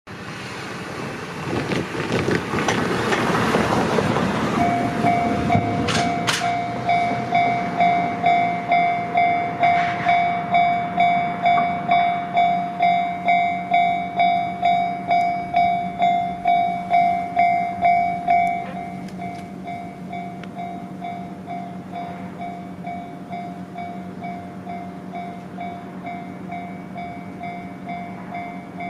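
A train rushes past for the first few seconds. Then a Japanese railway level-crossing warning bell starts ringing, about two strikes a second. After about 18 seconds it carries on at a clearly lower volume.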